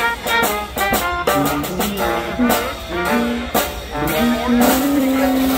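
Lively brass jazz music with quick melody lines over a steady beat, and a held low brass note near the end.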